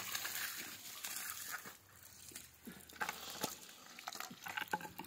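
Water gushing from the open end of a black poly water pipe, falling away about two seconds in as the pipe is pushed into a blue plastic compression fitting. After that come scattered clicks and knocks of the plastic fittings being handled and fitted together.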